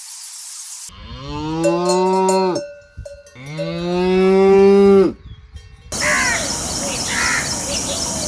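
A cow mooing twice, two long calls of about two seconds each, the second louder. Near the end a steady hiss with small high chirps takes over.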